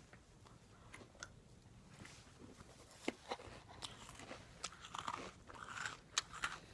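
Faint crunching of someone biting into and chewing a crisp lemon tea biscuit, with scattered sharper crunches from about three seconds in.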